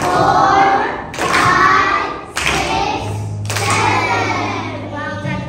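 Children's excited, high-pitched voices in a series of loud bursts about a second apart, with thuds.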